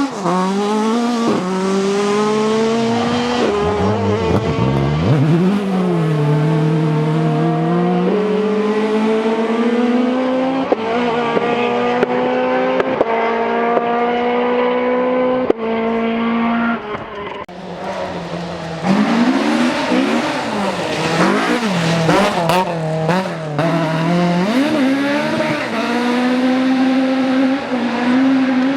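Ford Escort rally car's four-cylinder engine driven hard. The revs climb through the gears with short drops at each shift. There is a brief dip past the middle, then a stretch of rapid rising and falling revs as the throttle is lifted and reapplied, before it settles into steady hard running.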